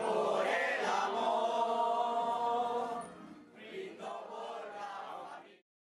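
A group of people singing or chanting together in long held notes, quieter after about three seconds and cut off abruptly just before the end.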